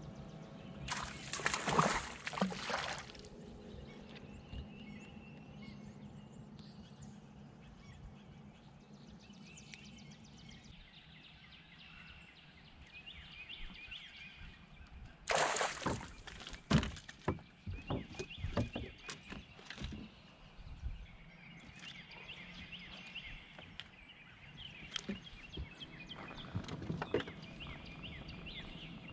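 Outdoor lake ambience from a bass boat: birds chirping and water sloshing at the hull, broken by two brief loud noisy bursts, one near the start and one about halfway, and a run of sharp knocks and clicks after the second.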